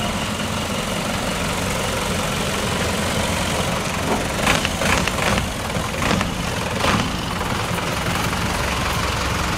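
Engine of a small cab-over truck running at idle as the truck creeps close past at walking pace. A few short sharp clicks or knocks come between about halfway and two-thirds of the way through.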